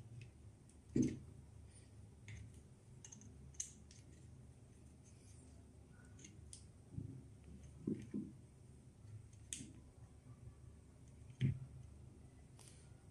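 Faint clicks and rustles of thin jumper wires being handled and pushed into the metal terminals of two cordless-tool lithium battery packs, with three soft knocks. The wires link matching terminals of a good pack and a dead one, to wake up a pack whose protection circuit stops it from charging.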